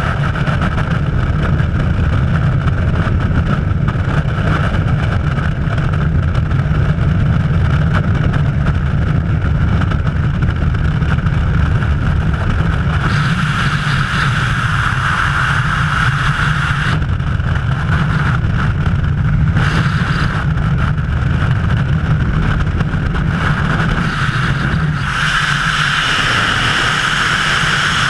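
Wind rushing over a helmet-mounted camera's microphone in skydiving freefall: a loud, steady rush with low buffeting. It turns brighter and hissier for a few seconds about halfway through and again near the end.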